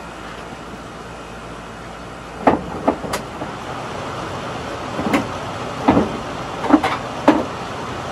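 Irregular sharp metallic clanks and knocks, about eight of them in the second half, as steel tools strike and lever against the car's front suspension parts while they are worked loose. They sit over a steady background noise.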